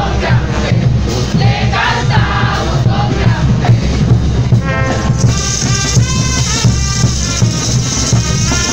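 A group of festival dancers singing a devotional song in chorus over a brass band's low accompaniment and drums; about five seconds in, the full brass band comes in with cymbals and trumpets over the singing.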